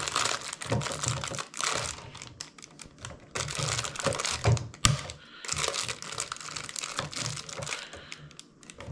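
Scissors snipping nylon zip ties and handling a power supply inside a plastic dryer housing: a busy run of clicks and rustling, with one sharp click about five seconds in.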